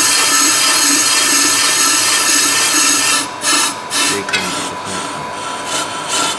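Pro-Cut on-car brake lathe's cutting tool scraping metal off a spinning brake disc during a rough cut. The scrape is loud and continuous for about three seconds, then breaks up a few times and goes on quieter. This intermittent cut is the sign of a distorted, misaligned disc with runout.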